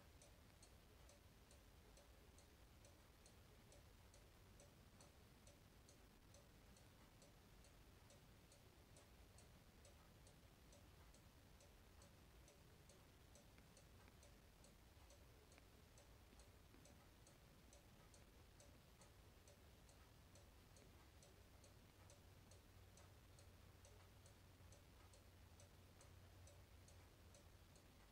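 Faint, steady ticking of a West German quartz cuckoo clock with its pendulum swinging, about two ticks a second.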